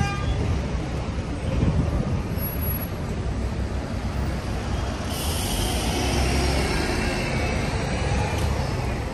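Street traffic: a steady low rumble of motor vehicles, with a higher hiss and whine from a nearby vehicle coming in about five seconds in.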